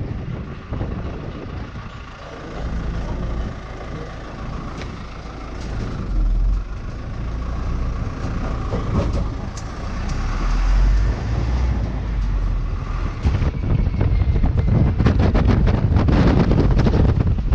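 Low rumble of a cruise ship under way, with wind buffeting the microphone, growing stronger and gustier in the last few seconds.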